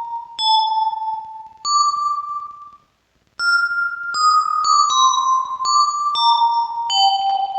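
A bell-like melody on a Yamaha PSR-36 keyboard, played through a Vivlex Time Maker delay pedal set to Reverse Tape, with the notes overlapping their own echoes. A few spaced notes are followed by a brief silence about three seconds in, then a busier run of notes.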